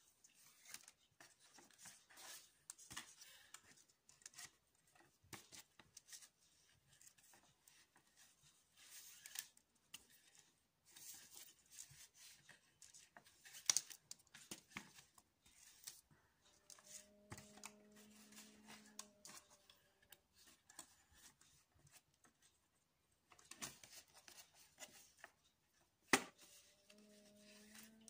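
Faint, irregular rustling and rubbing of macrame cord as fingers work and tighten knots, with two sharper clicks, about halfway through and near the end. A faint steady low hum comes in twice, in the second half.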